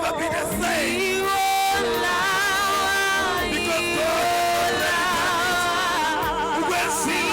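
Gospel worship singing: several voices singing together with strong vibrato on long held notes.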